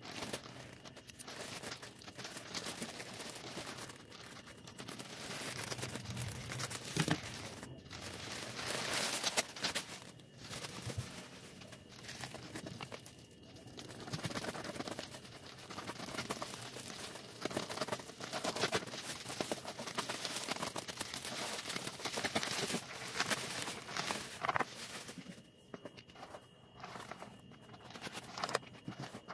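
Plastic mailer bag and bubble wrap crinkling and tearing as a parcel is unwrapped by hand, with a cardboard box being handled near the end.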